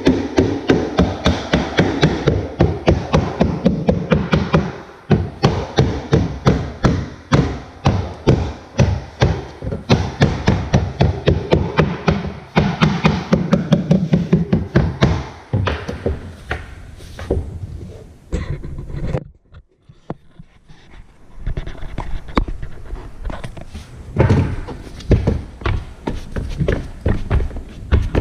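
Background music with a steady, fast beat that drops out briefly about two-thirds of the way through.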